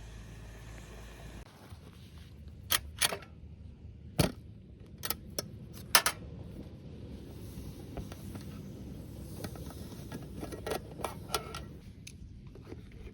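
A low steady hum that cuts off about a second and a half in, then a run of about a dozen sharp metallic clinks and knocks at uneven intervals, from metal objects being handled.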